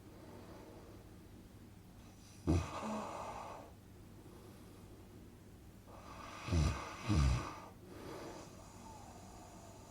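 A person snoring in slow cycles. There is one snore about two and a half seconds in, then two snores in quick succession around six and a half to seven seconds, each trailing off into a longer, quieter breath.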